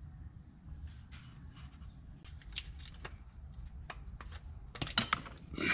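Small scissors cutting a thin piece to size: a scatter of short snips and clicks, with a few louder snips close together near the end.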